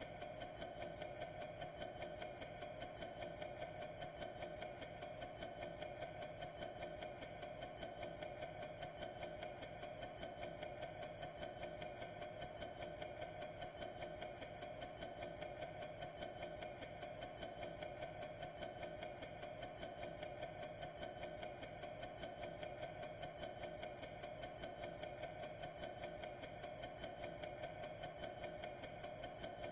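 A clock ticking steadily, several ticks a second, over a faint steady hum.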